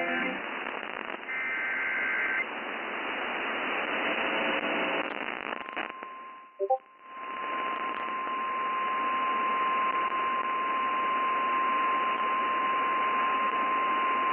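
Radio static hiss as a country song cuts off. A short burst of two-pitch data warble, an EAS header, comes about a second in. After a brief dropout with a loud blip near the middle, a steady single alert tone near 1 kHz holds for about nine seconds: the weather radio warning alarm that comes before a severe thunderstorm warning.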